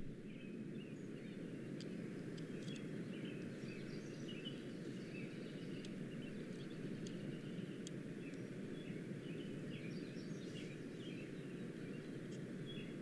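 Small birds chirping on and off, many short calls, over a steady low background noise of open-air ambience.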